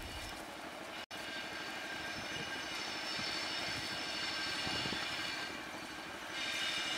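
Distant diesel locomotive of an approaching express train: a steady drone with a high whine, a little louder near the end.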